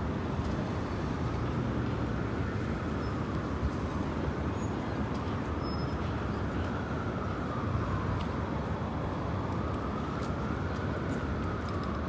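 Steady city street traffic noise, with a faint tone that rises and falls slowly twice in the second half.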